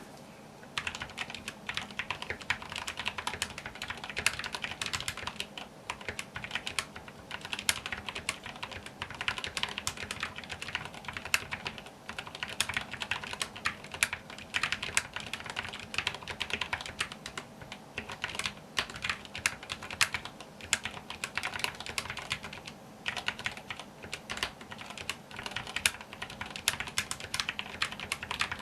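Typing on a Glorious mechanical keyboard fitted with lubed Cherry MX Brown tactile switches: a fast, steady stream of keystrokes with short pauses every few seconds.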